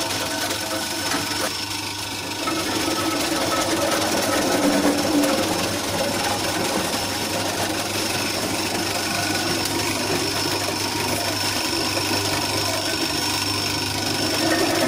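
Comet 2 HP single-phase electric chaff cutter running steadily, with a low motor hum, while its four-blade cutter wheel chops green fodder as it is fed in.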